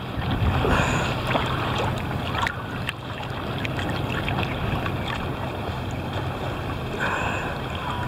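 Choppy sea water sloshing and splashing against a camera held at the water's surface, with wind on the microphone. The splashing of a swimmer's freestyle strokes close by.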